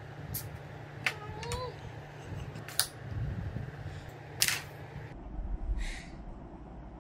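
Carrom striker flicked across the board, clacking against the coins and the board's frame: a handful of sharp, separate clicks, the loudest near the middle.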